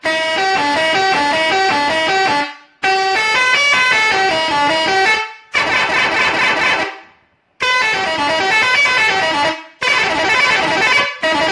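A-Grade six-trumpet musical air pressure horn playing a tune, sounding quick stepped notes one after another. The tune comes in about five loud phrases of two to three seconds each, with short breaks between them.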